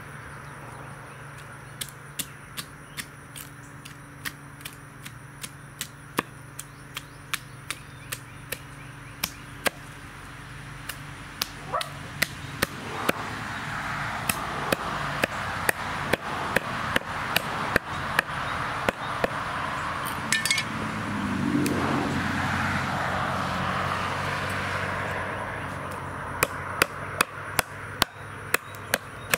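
Cleaver chopping through paddlefish on a round wooden cutting board: sharp knocks, about one a second at first, then in quicker runs. A rushing background noise swells and fades through the middle.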